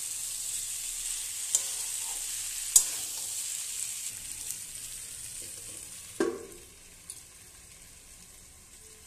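Potato and cauliflower pieces sizzling in hot oil and masala in a metal kadai while a metal spatula stirs and scrapes, with sharp clinks of the spatula against the pan. About six seconds in, a metal lid knocks down onto the kadai and the sizzling turns much fainter, muffled under the lid as the vegetables cook covered on low flame.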